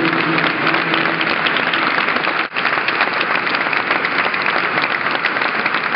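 Audience applauding: dense, steady clapping from a large seated crowd, briefly dropping out about halfway through.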